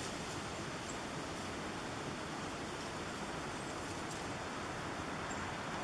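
Steady background hiss (room tone), with no distinct handling clicks or other events.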